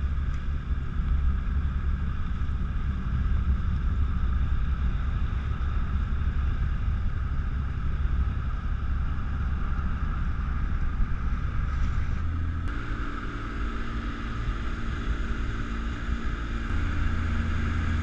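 Small motorboat's engine running under way, with water rushing past the hull. About twelve seconds in the engine note changes, and the deep hum comes back near the end.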